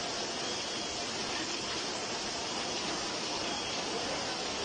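Steady rushing hiss of heavy rain and rainwater leaking in, with no breaks or distinct drips standing out.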